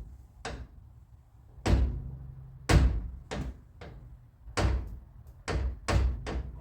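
A 1957 car's door and latch worked repeatedly: a series of metal clunks and clicks, about nine in a few seconds, the loudest about three seconds in. The latch is out of adjustment and something in the door is hitting.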